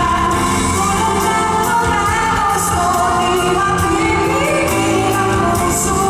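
Live band music with a woman singing long held notes that glide up and down in pitch, over steady accompaniment with regular cymbal-like ticks.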